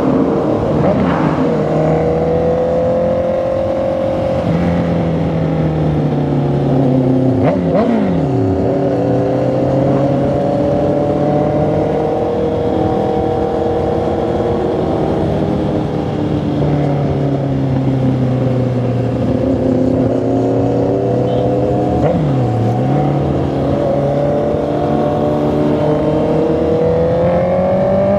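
Honda CB650R's inline-four engine and exhaust pulling along on the road, its pitch slowly rising and falling with the throttle. Twice the pitch drops sharply and quickly climbs back.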